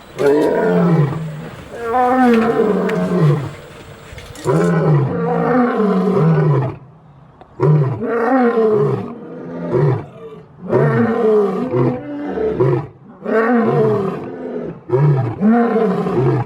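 Lion roaring: a long series of loud roars and grunts, each about a second long and falling in pitch, repeating with short breaks between them.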